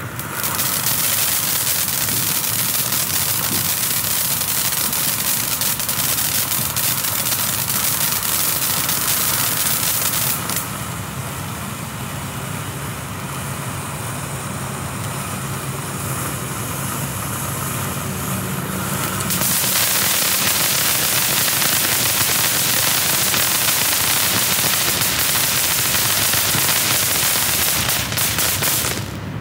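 Black Cat Close Encounters fountain firework spraying sparks: a continuous loud hiss with crackling. It turns duller about ten seconds in, brightens again about twenty seconds in, and dies down just before the end.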